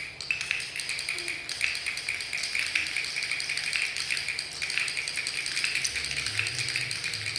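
Several handheld training clickers being clicked rapidly and unevenly at once, many sharp overlapping clicks a second. The clicks tell the person walking that he is heading in the right direction.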